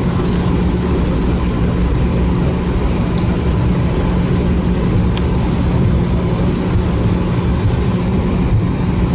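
Airbus A319 taxiing after landing, heard from inside the passenger cabin: steady engine and cabin noise with a constant low hum.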